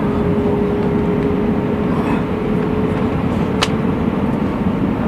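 Airbus A319 noise: a steady rumble of engines and rushing air with a constant hum, and a single sharp click about three and a half seconds in.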